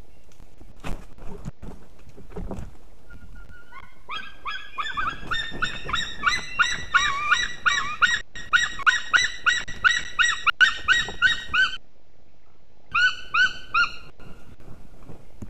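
White-tailed eagles on the nest calling: a long run of rapid yelping notes, about three to four a second, rising at the start and lasting around eight seconds, then a short burst of three more notes near the end. Soft knocks and rustling from the nest come before the calls.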